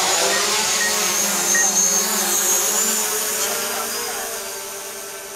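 DJI Mavic Pro quadcopter on its standard propellers lifting off and climbing: a steady whine of its motors and propellers with a strong low hum, growing fainter as the drone rises away.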